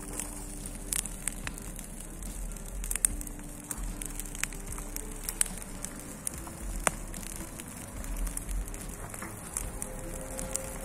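Bonfire of dry pruned garden branches burning, crackling with irregular sharp pops and snaps.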